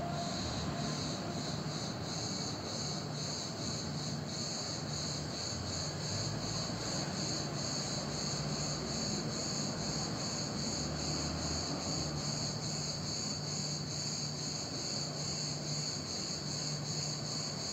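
Crickets chirping in a steady, even pulse, with a faint low hum underneath that comes and goes.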